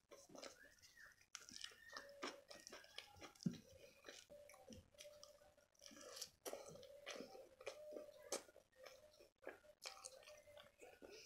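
Close-miked chewing of palak paneer, rice and lachha paratha eaten by hand: a quiet, irregular run of short wet clicks and mouth sounds.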